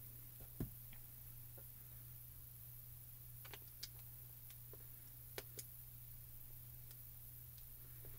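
A few faint clicks and light taps from handling a sheet of clear photopolymer stamps in its plastic packet, over a steady low hum.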